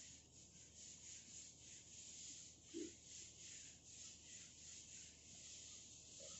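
Whiteboard eraser rubbing over the board in a run of quick back-and-forth strokes, a faint, evenly pulsing swish. It stops just at the end.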